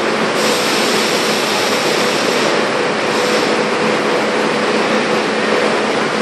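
R32 subway train standing at an underground platform, giving a steady rushing hiss with a faint steady hum underneath.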